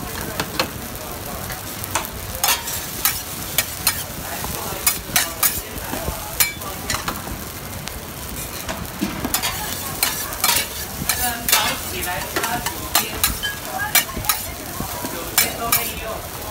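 Egg fried rice sizzling on a large flat griddle, with a metal spatula scraping and clacking against the hot surface as the rice is pushed and gathered. The clacks come irregularly, in busy clusters over a steady frying hiss.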